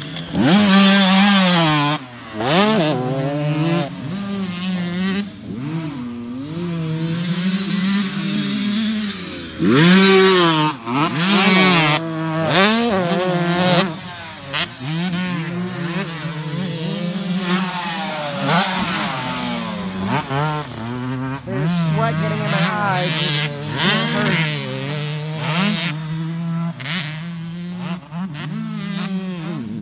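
Dirt bike engines revving on a motocross track, the pitch climbing and falling again and again with bursts of throttle through turns and over jumps. The sound changes abruptly a few times as one ride gives way to another.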